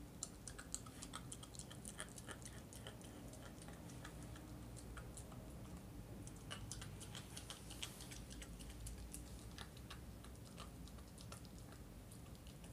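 Schnauzer puppy gnawing a raw chicken drumstick: quiet, irregular clicks and crunches of small teeth on bone and meat, with a short lull in the middle.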